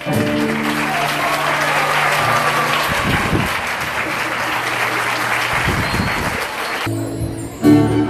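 Large audience applauding. About seven seconds in, the applause cuts off and a violin-led ensemble starts playing.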